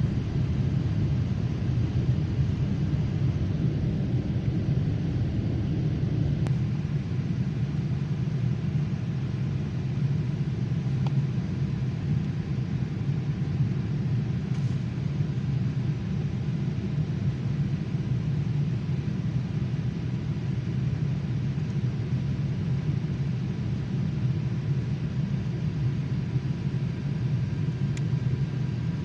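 Steady rumble of an airliner cabin in flight, jet engine and airflow noise heard from a window seat, with the plane descending toward landing.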